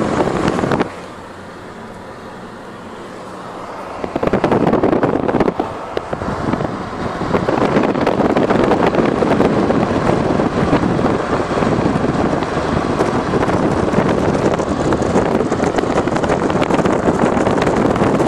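Steady rush of wind noise and running noise from a moving vehicle. It drops quieter about a second in and comes back loud about four seconds in.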